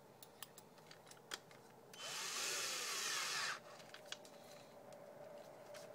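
Porter-Cable 840 9.6-volt cordless drill, running on an 11.1-volt lithium polymer RC battery, spun briefly for about a second and a half about two seconds in, its motor pitch rising and then falling. Light clicks come first as the keyless chuck is handled while a drill bit is fitted.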